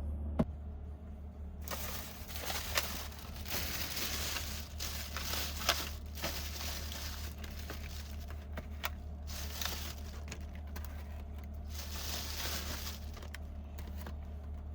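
Plastic packaging crinkling and rustling in handled bursts, with a few small clicks, over a steady low hum.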